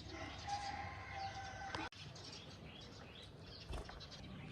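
Small pet bird giving soft, short chirps and calls, with a brief knock a little under four seconds in.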